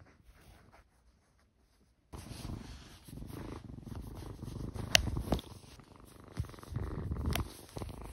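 Tuxedo kitten purring right at the microphone while being petted: a steady, rapid low rumble that starts about two seconds in, with two sharp clicks partway through.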